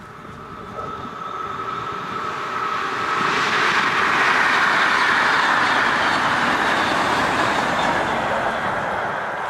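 Electric multiple-unit passenger train approaching and passing at speed: the run of wheels on rails grows over the first three seconds, is loudest as the train goes by, and eases off a little near the end. A faint steady high tone is heard at first, before the train arrives.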